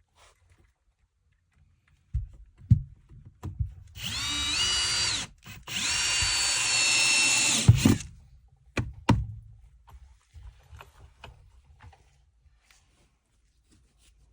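Power drill driving screws into wooden framing in two runs of a second or two each, its motor whine rising in pitch as it spins up and then holding steady. A few knocks of wood and tool handling come before and after.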